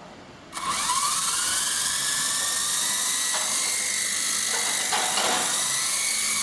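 Double Horse 9051 RC helicopter's small electric motors and rotor blades whining up to speed about half a second in, then holding a steady high whine in flight.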